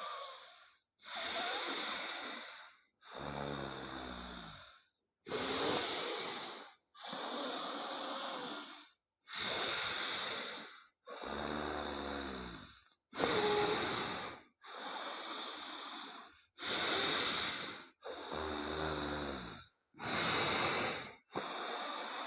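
Forceful alternate-nostril breathing (anulom vilom pranayama): about a dozen loud hissing inhales and exhales through one nostril at a time, each lasting a second or two with short pauses between, some with a low nasal rumble. The breaths are done this hard to clear blockage in the nostrils.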